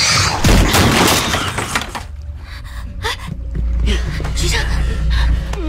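Film action sound effects: a loud, noisy crash for about the first two seconds, then a deep low rumble under gasps and a shouted name.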